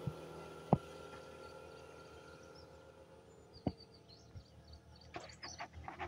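The sound of a passing vehicle dies away, leaving a low steady hum. Two sharp knocks come, one about a second in and one near the middle. Small birds chirp in the second half.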